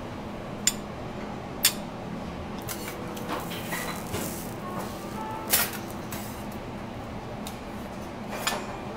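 Metal spoon and spatulas clinking and scraping against a steel teppanyaki griddle and a plate: about four sharp clicks with a few lighter knocks between, over a steady low hum.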